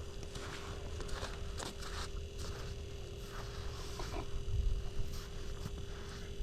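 Soft, irregular crunches and scrapes on snowy ice over a low wind rumble on the microphone, with a faint steady hum.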